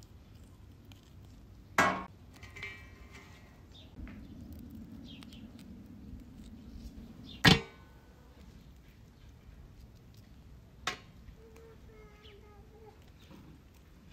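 Raw tiger shrimp being peeled by hand and set on a steel tray, with three sharp knocks of the tray, the loudest about halfway through, the first two followed by a brief metallic ring.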